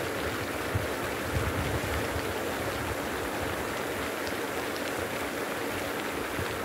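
Steady rushing and splashing of a pond aerator churning the water, with wind buffeting the microphone.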